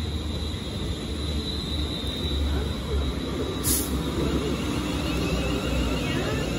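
London Northwestern Railway Class 350 Desiro electric multiple unit running past: a steady low rumble of wheels on rail, with a thin high whine in the first two seconds and a brief sharp crackle about three and a half seconds in.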